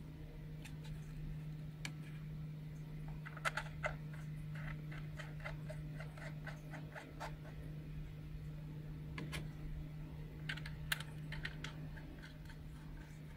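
Hard plastic clicks and taps from DJI FPV Goggles V2 being handled and turned over, coming in two bunches of quick clicks, over a steady low hum.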